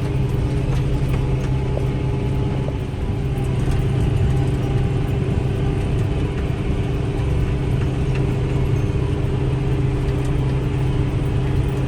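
Tractor engine running steadily while pulling a round baler through a hay windrow, a constant low hum that holds one pitch.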